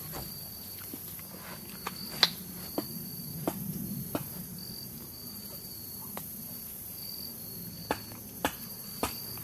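Steady high-pitched chorus of insects, pulsing on and off, with a scattering of short sharp clicks and taps. The loudest click comes about two seconds in.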